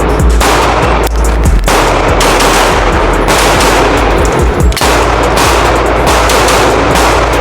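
Handgun shots fired rapidly in quick strings during a timed shooting drill. They are loud and packed closely together, with only brief breaks between strings.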